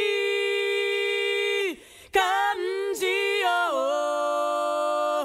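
A solo voice singing a slow Japanese song unaccompanied, holding long notes. There is a short break about two seconds in, a few moving notes, then a lower held note.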